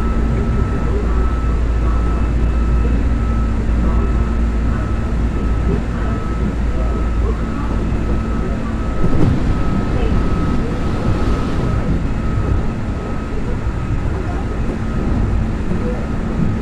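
Keihan 2200 series electric train car running between stations: a heavy steady rumble of the wheels on the track with a thin steady hum above it. The low rumble eases about halfway through, with a brief louder rattle just before.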